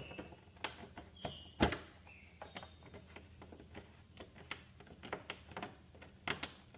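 Hand tools and small metal motorcycle parts being handled during reassembly: scattered light clicks and knocks, one sharper knock about a second and a half in, and a couple of brief high squeaks.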